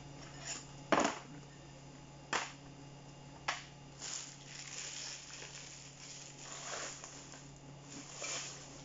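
Chicken bones being picked off a ceramic plate and dropped into a cardboard takeout box: three sharp taps about a second apart, then softer rustling of the box, over a steady low hum.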